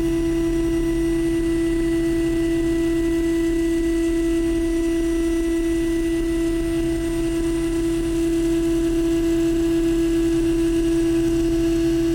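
CNC mill spindle running steadily while surface-milling aluminum with a PCD insert, giving an unbroken, even whine.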